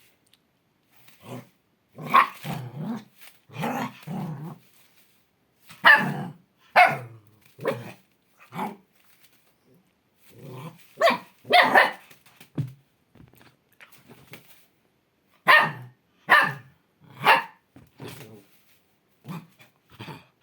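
Bhutia dog barking: a long run of loud barks in groups of one to three, with short pauses between the groups.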